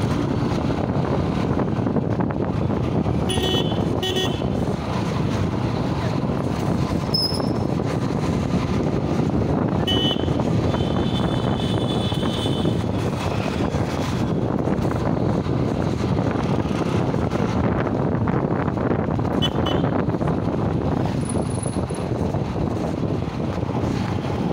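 Steady engine and road noise of a two-wheeler riding through city traffic, with short vehicle horn toots: a couple of quick toots about three seconds in, a longer horn around ten to thirteen seconds, and another brief toot near twenty seconds.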